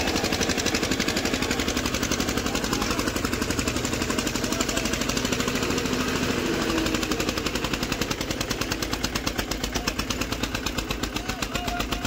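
Eicher 241 tractor's single-cylinder diesel engine running under load, a fast, even thudding beat of firing strokes, as it tries to pull a trailer out of loose sand. The beat grows more distinct from about halfway.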